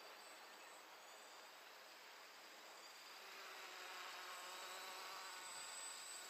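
Faint buzz of a deadcat quadcopter's four Multistar 2209-980KV brushless motors spinning 10x4.5 propellers. It grows a little louder about three seconds in as the quadcopter comes closer.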